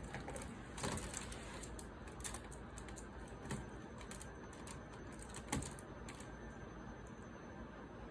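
Small plastic clicks and taps of LEGO minifigures and pieces being handled and posed: a few irregular, separate clicks over a steady low hiss.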